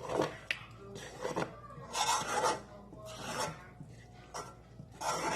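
Spatula scraping the bottom of a pan while stirring thickening yema spread, repeated scraping strokes about once a second.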